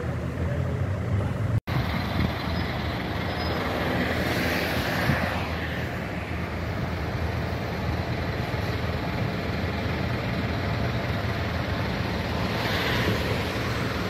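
Idling and running diesel tractor engines in a column, a steady low rumble, with a broad hiss swelling twice as a vehicle passes close. The sound breaks off for an instant about a second and a half in.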